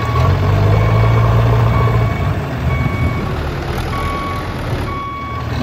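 Truck engine running steadily with a reversing beeper sounding about once a second.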